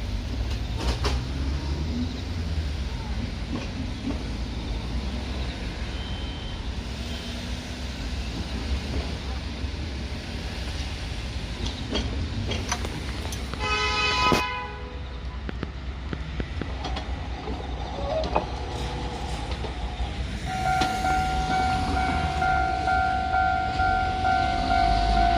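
A Kotoden electric train's horn sounds one short blast about halfway through, over a steady low rumble. Near the end, a railway level crossing's warning bell starts ringing, a steady repeating tone that keeps going.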